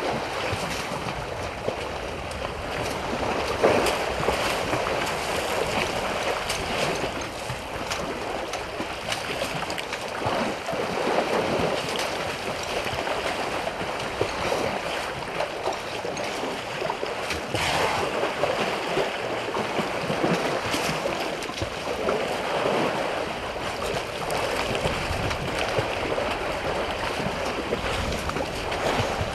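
Water splashing and sloshing as a young elephant rolls and wallows in a shallow waterhole, with elephants wading around it. It is a steady churning, swelling and fading, with a few sharper, louder splashes.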